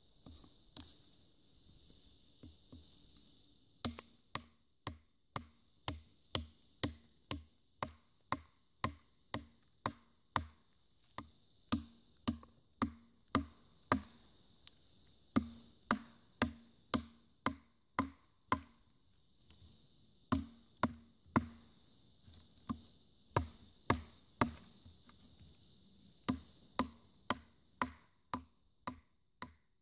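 The fixed steel blade of a Gerber Bear Grylls Ultimate Survival Knife chopping into a dead branch like a hatchet. It starts with a few light taps, then about four seconds in settles into steady strikes of about two a second, with a few short pauses.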